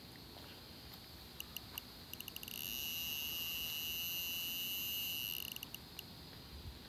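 Handheld RF bug detector's alarm. A few separate high beeps about a second and a half in quicken into a fast string and merge into one continuous high tone for about three seconds. The tone then breaks back into a few beeps that stop about six seconds in. The detector is signalling a strong radio signal, which the owner takes for a hidden tracking or surveillance device in the car.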